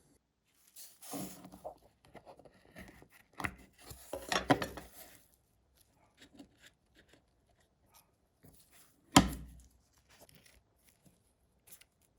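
Hand work on small objects: scattered rubbing and scraping noises, busiest a few seconds in, with one sharp knock about nine seconds in.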